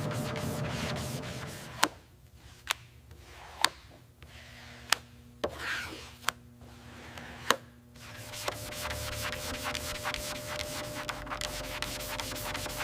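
Fast rubbing strokes on a surface, over a faint steady hum, stopping about two seconds in. About seven sharp clicks follow over the next six seconds, and the rubbing strokes resume about eight seconds in.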